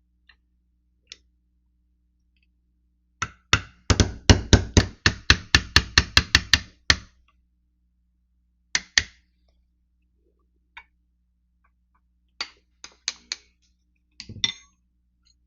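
A small hammer tapping quickly on the action of a Winchester 1897 shotgun, about four blows a second for some four seconds, to drive out a pin. A double knock and a few scattered taps follow.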